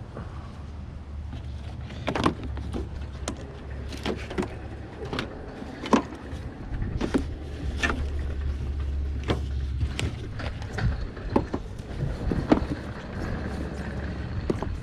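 Plastic cowl panel and its clips on a car being handled and worked loose at the base of the windshield: irregular sharp clicks and knocks over a steady low hum.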